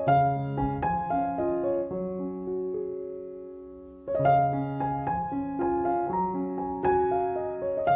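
Background piano music: soft notes in an even pattern. About two seconds in a chord is left to ring and fade, and the playing picks up again about four seconds in.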